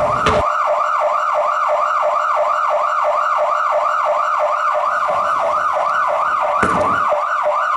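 Loud siren-like yelp: one high tone sweeping up and down about four times a second, without a break. Music under it stops about half a second in.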